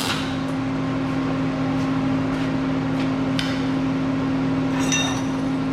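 A steady mechanical hum, with a few light metal clicks and a ringing metallic clink about five seconds in, as of metal parts being handled.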